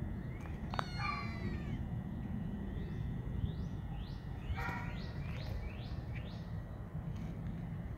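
Cats meowing: one meow about a second in and another near the middle, with a quick series of short, high, rising chirps around the second meow.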